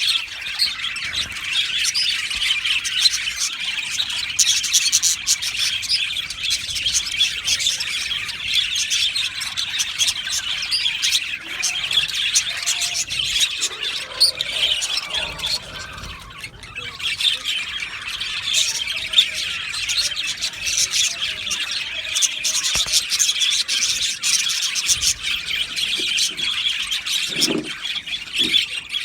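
A colony of budgerigars chattering, chirping and squawking all at once, a dense continuous warble with a short lull about halfway through.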